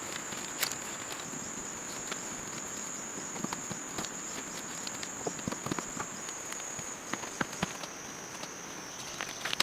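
A steady high-pitched insect drone, dropping slightly in pitch near the end, with scattered light knocks and clicks.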